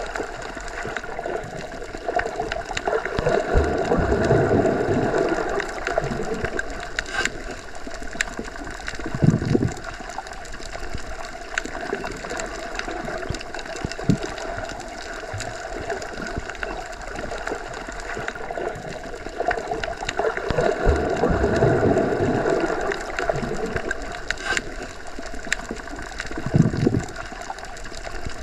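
Underwater water ambience: a continuous gurgling hiss that swells twice, with a short low surge of water twice and scattered faint clicks.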